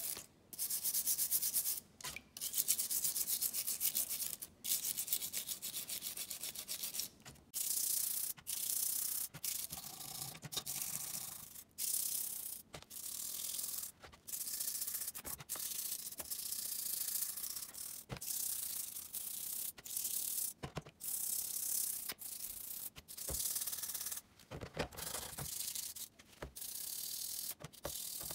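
A stiff brush scrubbing a rusty Bahco 30 alligator adjustable wrench, wet with cleaning liquid, in quick back-and-forth strokes. The strokes come in scratchy runs of a second or two, broken by short pauses.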